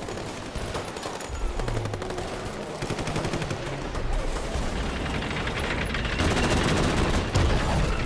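Film battle sound effects: rapid automatic gunfire over a heavy low rumble, growing louder and denser in the last couple of seconds.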